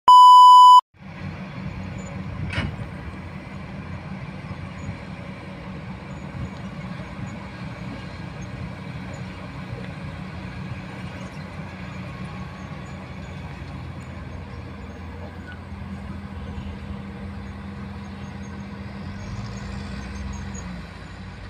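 A short, loud 1 kHz test-tone beep, then the steady running of distant heavy diesel machinery, a Kobelco excavator and dump trucks, with a single knock about two and a half seconds in. The low engine note drops away near the end.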